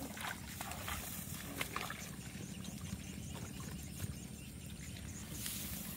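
Wind rumbling on the microphone, with faint sloshing of someone wading in a muddy, water-filled ditch. A faint high chirp repeats several times a second in the background.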